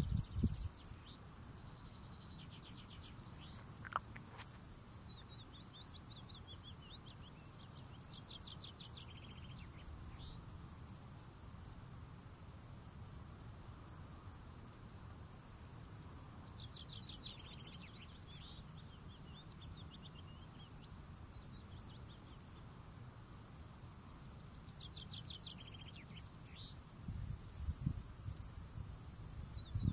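European field cricket (Gryllus campestris) male singing at his burrow: an unbroken run of high, evenly spaced chirps. Every several seconds a fainter run of trills that drop in pitch sounds beneath it, and a few dull low knocks come near the end.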